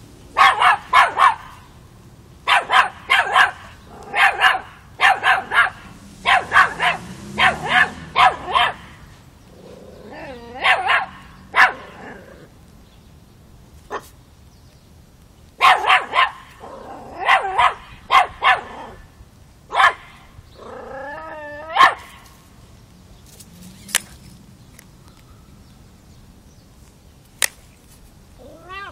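Miniature Pinscher puppy barking at a cat: high-pitched yaps in rapid volleys of three or four, with short pauses between volleys, then dying down to a few single barks in the last few seconds.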